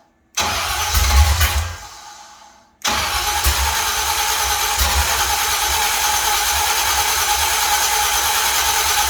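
Ford 390 FE big-block V8 with headers firing up: a short loud burst that fades away and stalls. About three seconds in, it catches again suddenly and runs steadily. The engine starts but won't keep running, which the owner puts down to a fuel pump that isn't working.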